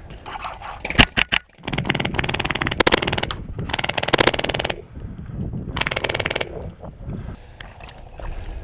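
Airsoft guns firing: a few single shots about a second in, then several rapid-fire bursts.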